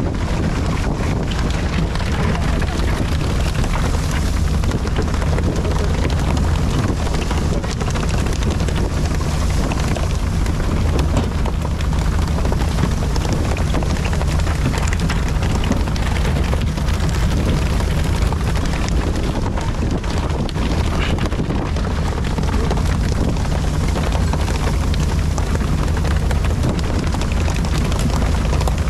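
A fishing boat's engine running steadily with a low hum, under a constant rush of wind on the microphone and spraying, splashing water.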